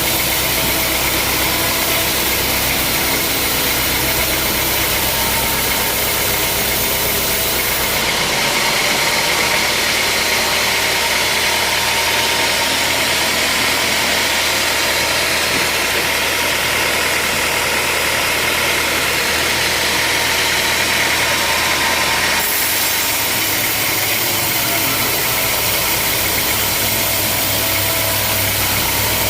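Sawmill machinery running steadily with a low hum and a continuous noise. From about eight seconds in until about twenty-two seconds in, the low hum drops away and a brighter, higher-pitched noise takes over.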